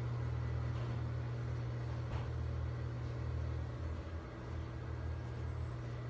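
A steady low hum, like a machine or appliance running, with faint rustling over it.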